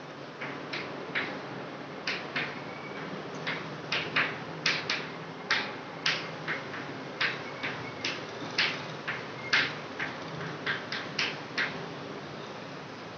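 Chalk writing on a chalkboard: a quick, uneven run of short taps and scratches, about two a second, as each letter and word is struck out, stopping near the end.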